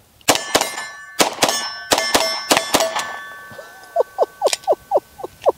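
Glock 43X 9 mm pistol fired in several quick double taps, the hits ringing off steel targets after each shot.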